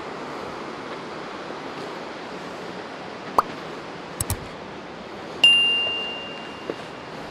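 A single bell-like ding a little past halfway, struck sharply and ringing as one clear tone that fades over about a second and a half. A few sharp clicks come before it, over a steady rushing noise.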